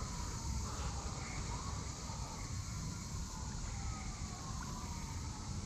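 Wind buffeting the microphone with a low rumble, while a faint distant siren wails, its pitch sliding slowly down and up.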